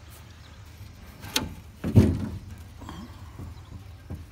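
Two dull knocks about half a second apart, the second louder and deeper.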